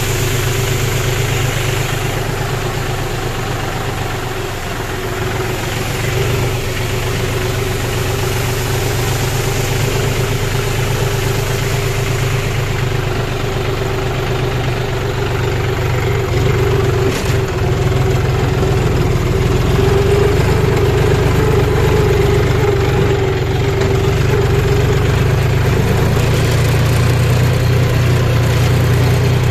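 John Deere 5039D tractor's three-cylinder diesel engine running steadily under way, getting a little louder about halfway through.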